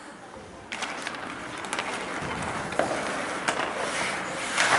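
Ice hockey play: skates scraping the ice under a steady rink noise, with several sharp clacks of sticks and puck about a second apart, and a brief burst of voices near the end.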